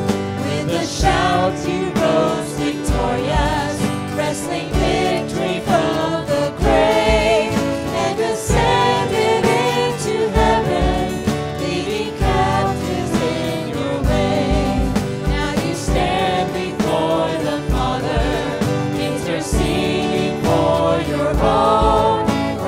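A worship team of several singers, women's and a man's voices, singing a modern hymn together into microphones, with piano accompaniment and a steady low beat underneath.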